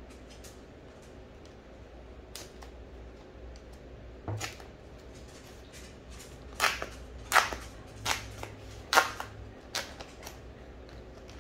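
A paper protective sleeve being opened and handled by hand as a tablet is slid out of it: a series of sharp paper crinkles and rustles, starting about four seconds in, with a cluster of louder crinkles over the next few seconds.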